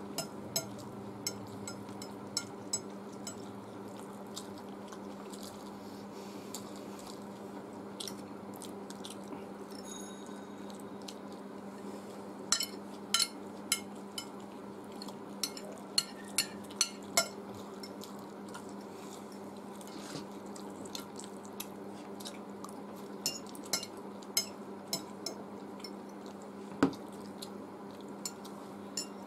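Metal fork clinking and scraping on glass plates in sharp, irregular clicks, with chewing of chowmein noodles, over a steady low hum.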